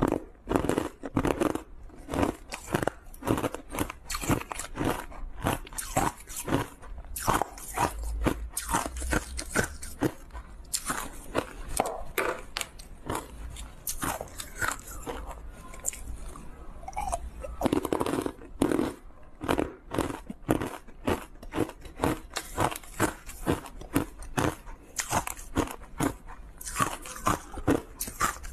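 Frozen matcha green-tea ice being bitten and chewed: a rapid, near-continuous run of sharp crunches as the ice pieces break between the teeth.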